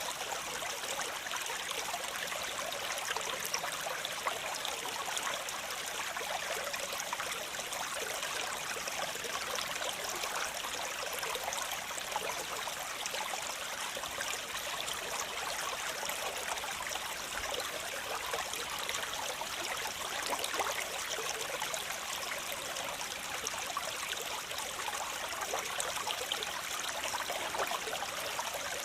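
Steady rushing and splashing of water falling over rocks, a waterfall or cascade, with fine spattering throughout and little low rumble.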